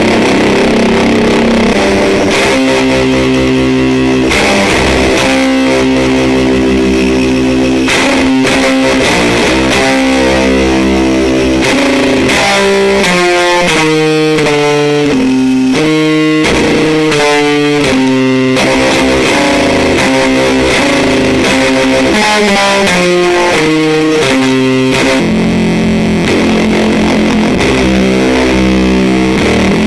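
Electric guitar played through an EarthQuaker Devices Fuzz Master General fuzz pedal into a Fender Deluxe Reverb amp: loud, heavily fuzzed held chords, with a stepping run of single notes in the middle.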